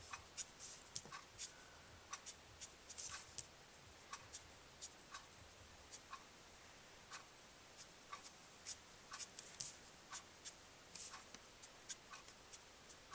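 Copic marker brush nib flicking across smooth cardstock in short, quick feathering strokes, a couple a second, each a faint soft scratch.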